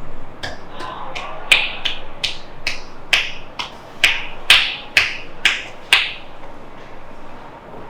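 A masseuse's hands striking the body in a fast run of sharp, popping claps, percussive massage strokes at about two to three a second. The run stops about two seconds before the end.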